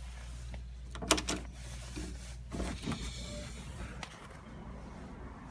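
Door deadbolt's thumb-turn clicking sharply about a second in, followed by softer knocks and rattles as the door is opened, over a steady low hum.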